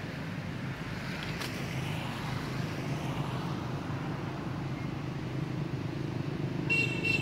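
Steady low rumble of road traffic, with a single click about a second and a half in and a brief high-pitched squeak near the end.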